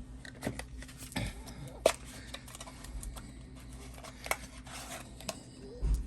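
Scattered light clicks and knocks of small objects being handled while putty is fetched for a model repair, the sharpest just under two seconds in, over a low steady hum.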